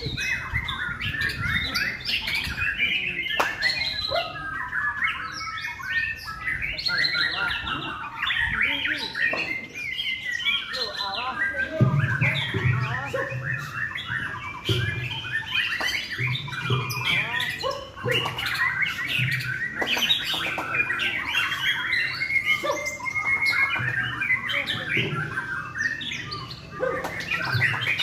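White-rumped shama singing a long, varied song of rapid chirps, whistles and harsh notes that runs without pause.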